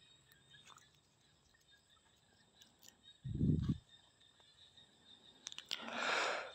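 Near silence, broken about halfway through by one brief low thump, and near the end by a few soft clicks and a rustle.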